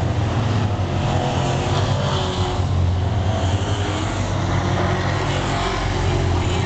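Stock cars racing around a paved oval, their engines and tyres making a steady, loud drone as the pack goes by.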